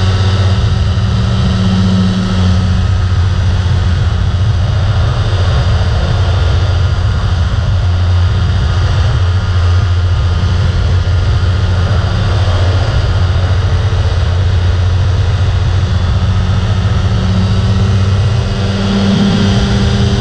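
Rotax 503 two-cylinder two-stroke engine on an ultralight trike running at a steady cruise setting, its pusher propeller turning, with rushing airflow in flight.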